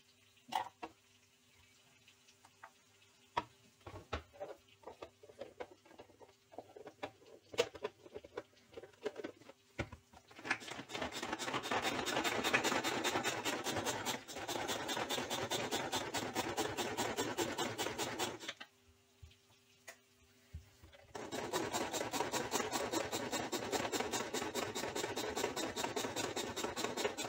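First a knife scraping and tomato pieces knocking into a plastic chopper bowl, in scattered clicks. Then a hand-pulled cord food chopper whirs as its spinning blades chop peeled tomatoes into purée, in two long runs with a short pause between them.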